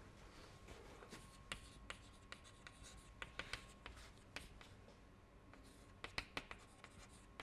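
Chalk tapping and scratching on a chalkboard as words are written by hand. The strokes are faint, short and sharp, with a run of taps in the first half and another cluster about six seconds in.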